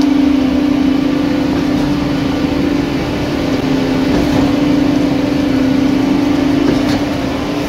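Diesel-powered concrete truck mixer and concrete pump running together with a constant drone, pumping concrete from the mixer's chute through the line.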